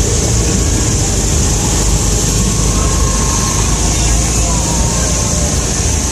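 Steady outdoor rumble and hiss, with no distinct engine note, rev or single event standing out.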